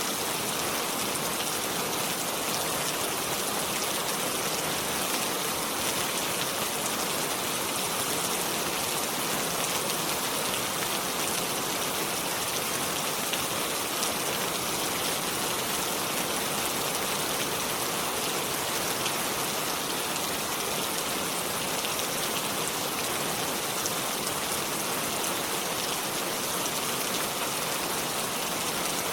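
Steady rain falling: an even hiss full of the fine patter of many small drops, unchanging throughout.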